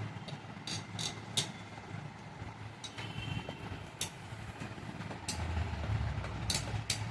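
Scattered light clicks and taps of computer parts being handled during assembly, over a steady low hum of background noise.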